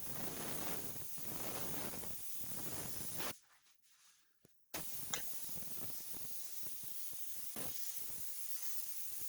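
Paint spray gun spraying with a steady air hiss. The hiss stops for about a second and a half roughly a third of the way in, when the trigger is released, then starts again.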